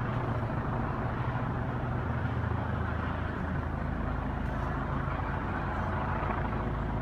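Steady low engine rumble of idling vehicles, under a general noisy street din.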